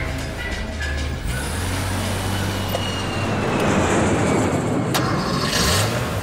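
Jet airliner flying low overhead: a rushing engine noise that swells to a peak about four seconds in, with a high whine sliding down in pitch as it passes. A short sharp click follows, then a brief hiss near the end.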